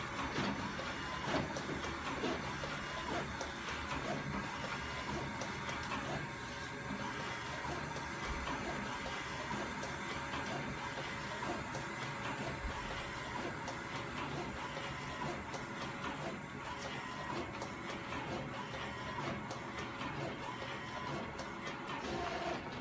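Epson large-format inkjet printer printing on roll paper: the print-head carriage shuttles back and forth with a steady mechanical running sound and many small clicks.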